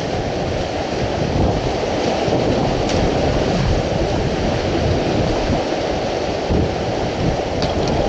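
Steady rushing of whitewater rapids, a dense low noise that does not let up.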